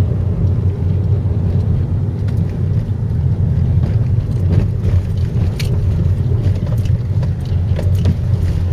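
Car driving along a paved road, heard from inside the cabin: a steady low rumble of engine and tyres.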